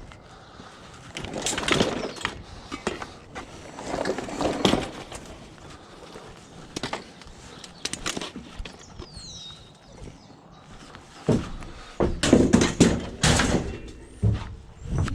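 Scrap metal being picked up and loaded, clanking and clattering in irregular bursts, loudest in a run of bangs a little after the middle.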